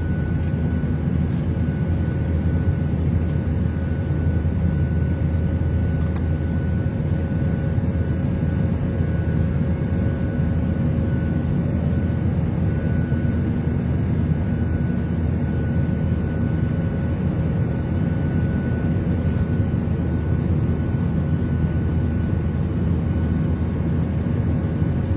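Airplane cabin noise: a steady, unchanging low drone with a faint high whine held on one pitch.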